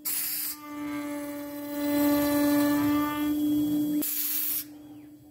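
CNC router motor whining at a steady pitch while a bit cuts a pocket into walnut. A hiss of cutting comes at the start and again about four seconds in, then the cutting sound and upper whine fall away near the end, leaving only the steady motor tone.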